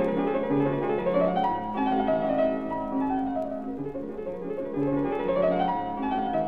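Background piano music, with runs of notes climbing twice.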